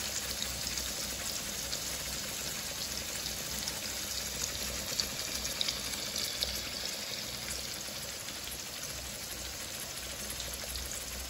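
Rohu fish steaks shallow-frying in hot refined oil in an aluminium kadai: a steady sizzle with scattered small crackles.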